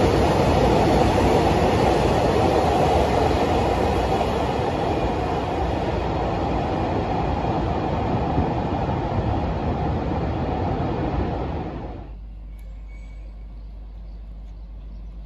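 Freight train of empty container flatcars running past in a rail tunnel: a loud, dense rumble and clatter of wheels on rail that slowly fades. About twelve seconds in it cuts off abruptly, leaving a much quieter steady low hum.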